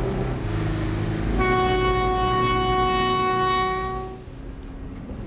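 A ship's horn sounds one long steady blast of about two and a half seconds, starting about a second and a half in, over a low steady hum.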